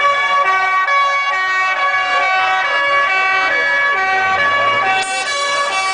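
A multi-tone musical horn playing a tune in quick steady notes over crowd voices. An engine revs up briefly about four seconds in.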